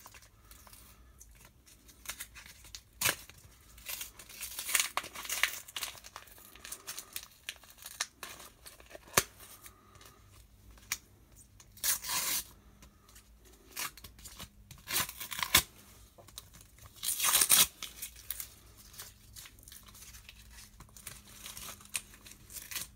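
A mail package being torn open: irregular bursts of tearing and crinkling packaging, loudest about three, twelve and seventeen seconds in.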